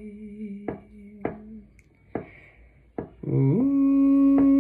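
A man singing unaccompanied: the held last note of a line ("conocí") fades out about a second and a half in. A few sharp clicks come in the pause, and just after three seconds he hums a note that slides up and then holds steady.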